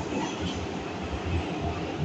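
Hanshin 9000-series train pulling out of an underground station platform: a steady rumble of wheels on rail with repeated low thumps as it rolls away.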